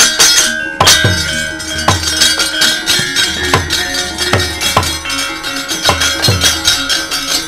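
Javanese gamelan accompanying a wayang kulit shadow-puppet scene: sharp metallic clanks and deep drum strokes every second or so over ringing metallophone tones.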